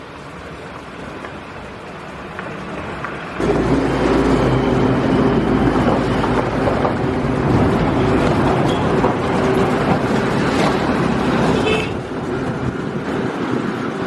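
Steady engine-like rumble with a noisy hiss. It steps up suddenly about three and a half seconds in and eases off a little near the end.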